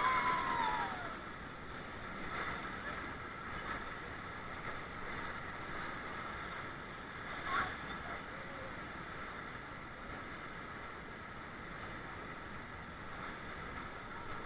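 Steady rush of river water around a raft on a rapid, with a call trailing off at the start and a short sharp sound about halfway through.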